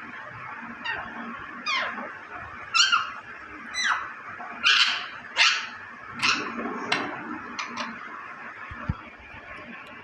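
Green parakeet giving a string of short, sharp, shrill calls, each a quick sweep in pitch, about one a second from about a second in until near the end, loudest in the middle. A small low thump near the end.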